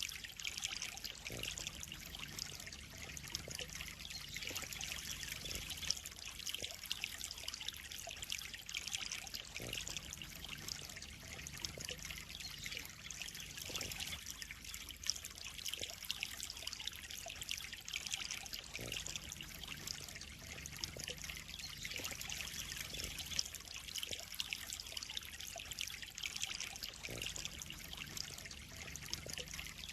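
Steady trickle of water running into a koi pond, with small splashes now and then.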